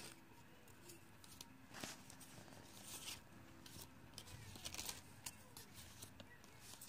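Faint scratchy strokes of a crayon scribbling on paper, coming in short uneven bursts.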